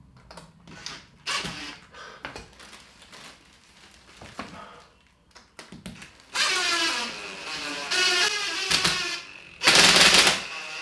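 DeWalt 18V XR cordless drill driver driving screws through a steel TV wall bracket into wall plugs in brick, its motor whine sinking under load over about three seconds. A short, louder harsh burst near the end, with small clicks and knocks of handling earlier.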